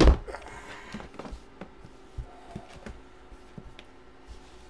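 A cardboard Hit Parade baseball jersey box handled and set down with a loud thump at the start, followed by lighter knocks, taps and rustling as hands move over it.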